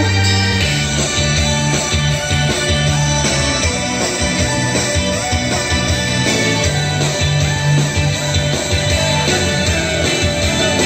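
Upbeat idol pop song with electric guitar and a steady beat, played loud through a live stage's sound system.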